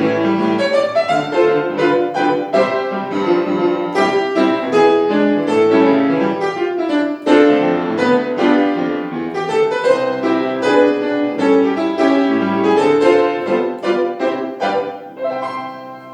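Instrumental music with piano and a melody line, playing a light, even tune in a steady rhythm and fading out near the end.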